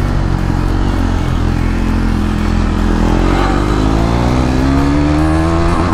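Motorcycle engine under hard acceleration as a rider pulls a long wheelie, its pitch climbing steadily through the second half.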